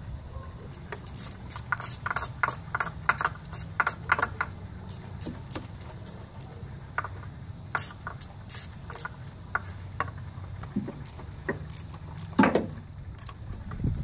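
Ratchet wrench clicking in quick runs as the VTEC solenoid's 10 mm bolts are run in, then scattered clicks and a single louder knock of metal tools. A low steady hum runs underneath.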